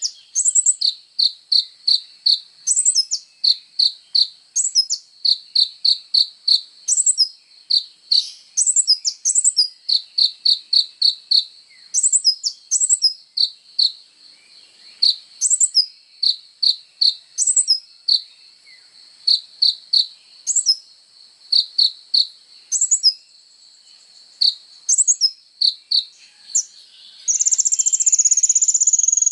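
Sunbird ('kolibri ninja') singing: a fast string of short, sharp high chips, about two to three a second, with occasional higher notes and two brief pauses. A couple of seconds before the end it breaks into a long, loud, high trill that falls in pitch.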